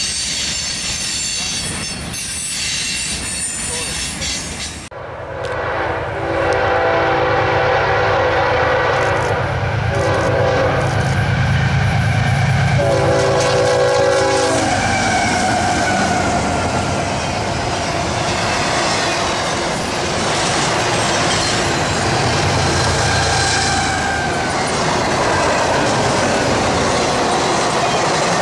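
A freight train of hopper cars rolling past. After a cut, a CSX diesel locomotive sounds its horn in several blasts for about ten seconds as it comes by. The steady rumble and wheel clatter of double-stack intermodal cars on the rails follows.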